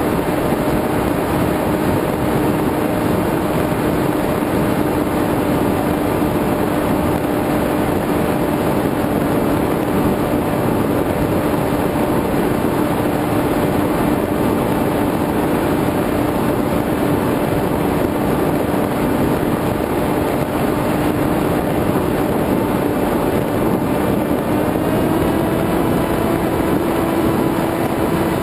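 Motor and propeller of an FPV model aircraft, heard through its onboard camera: a steady drone over a rush of air noise. The pitch steps up slightly a few seconds before the end.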